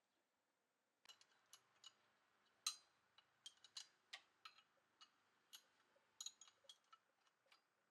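Irregular light clicks and clinks of small hard objects being handled, about two dozen sharp ticks starting about a second in, the loudest just before the three-second mark.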